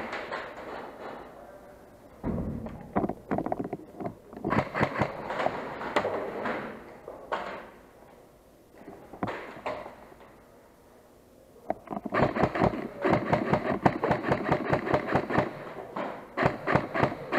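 Airsoft electric guns firing in rapid bursts of sharp clicking shots, with a lull in the middle and a long run of bursts near the end.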